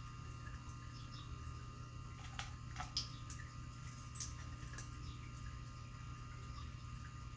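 Cat eating from a food-puzzle feeder: a few faint clicks about two to three seconds in and again just past four seconds, over a steady low hum.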